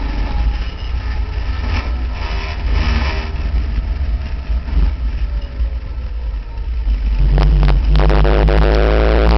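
Open-cockpit racing car's engine heard from onboard, running at part throttle with rough wind noise on the microphone, then opening up to a louder, steady pull about seven seconds in.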